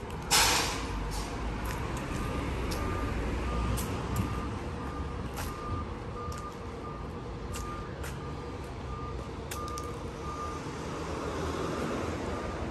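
A truck's reversing alarm beeping steadily, about three beeps every two seconds, over low street traffic rumble. A loud, short burst of hissing air comes just after the start.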